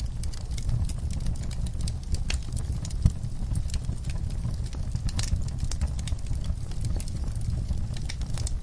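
Wood fire burning in a fireplace: a steady low rumble of the flames with irregular crackles and snaps from the logs, one sharper pop about three seconds in.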